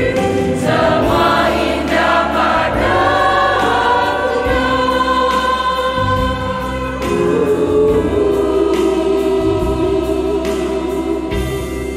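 Women's choir singing the closing lines of an Indonesian Christian song with instrumental accompaniment, then holding a long final chord from about seven seconds in.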